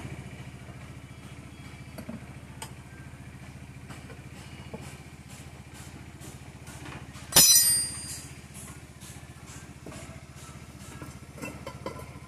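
Steel tire lever and hands working a motorcycle tire on its alloy wheel: scattered small clicks and knocks, and one loud ringing metal clank about seven seconds in. A steady low engine hum runs underneath.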